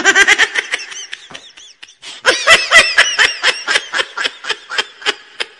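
High-pitched laughter in two fits of quick, rhythmic pulses: a short one at the start, then a longer one from about two seconds in.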